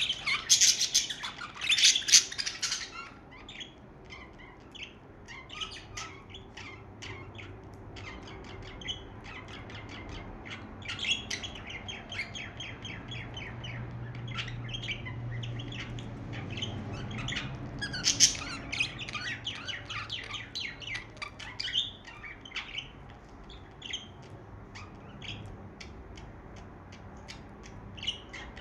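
Budgerigars chirping and chattering in quick, short calls, with louder clusters of squawky chirps at the start and again about two-thirds of the way through.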